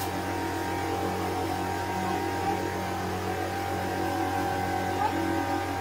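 A steady low hum, with several even tones holding throughout and a fainter tone that comes and goes.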